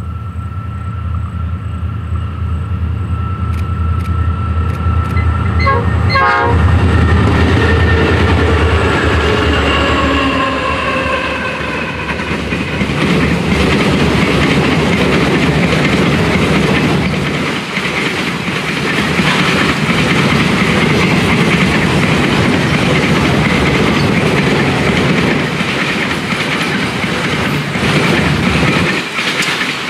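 A freight train of four diesel-electric locomotives passing at speed. The heavy diesel rumble is loudest in the first six seconds, with a horn sounding that drops in pitch as the locomotives go by. Then comes the steady rolling and clickety-clack of a long rake of grain hopper wagons.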